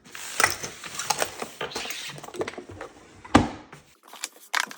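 Small hard objects clattering and knocking as they are handled and put into a kitchen drawer, with a loud sharp knock about three and a half seconds in.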